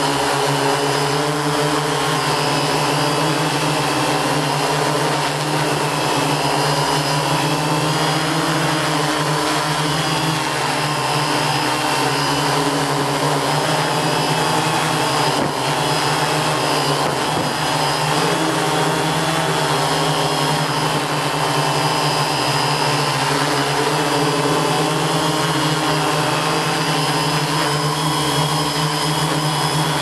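HexaKopter multirotor drone's six electric motors and propellers running steadily in a hover, heard from on board the craft: a low hum under a high whine that wavers slightly as the motor speeds adjust.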